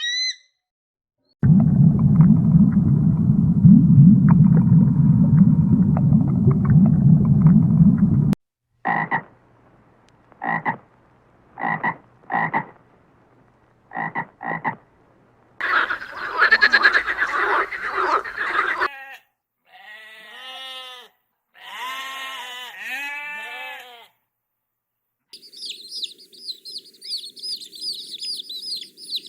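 Several different animal calls cut one after another, frogs croaking among them: a stretch of loud low calling, then short croaks in pairs, then repeated arching calls, and high rapid chirping near the end.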